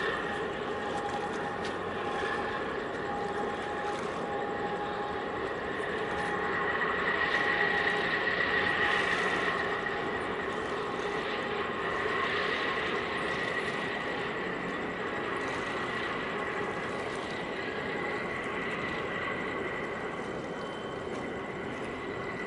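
Steady machinery hum with several high whining tones held through it, swelling slightly a few seconds in and easing off again.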